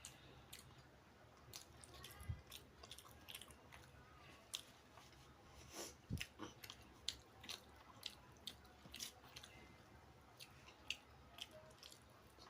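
Close-miked chewing of a mouthful of beef biryani: quiet, irregular wet mouth clicks and smacks, a few a second.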